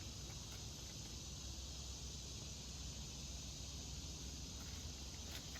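Steady chorus of insects shrilling outdoors, one even high-pitched hiss that does not change, over a low rumble.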